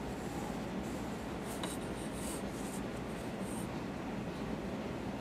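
Pencil drawing lines on paper along a ruler: a few short scratchy strokes between about one and a half and three and a half seconds in, over steady low background noise.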